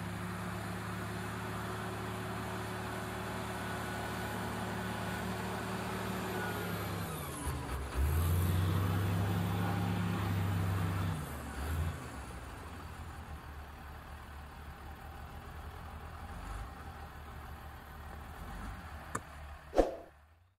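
Shantui crawler bulldozer's diesel engine running steadily. About seven seconds in the note dips, then the engine runs louder at a lower pitch for about three seconds before easing back. A short loud sound comes near the end.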